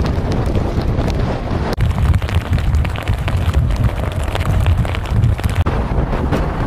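Strong storm wind buffeting the microphone in gusts, over the wash of heavy surf breaking on a rock jetty. The sound shifts abruptly twice, about two seconds in and again near the end.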